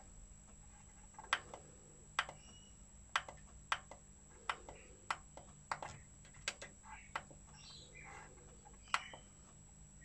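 Sharp, short clicks of the front-panel preset/tuning buttons on a Yamaha HTR-5540 AV receiver, about ten presses at uneven intervals, the loudest about nine seconds in. The FM tuner is being stepped between stations and gives out no radio sound, leaving only a faint hum and a few faint chirps between the clicks.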